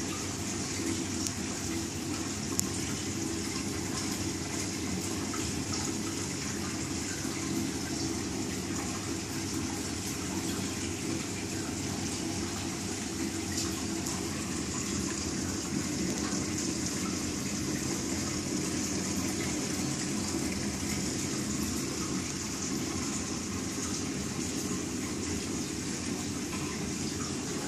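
Reef aquarium's water circulation: a steady rush of moving, falling water with a low hum underneath, unchanging throughout.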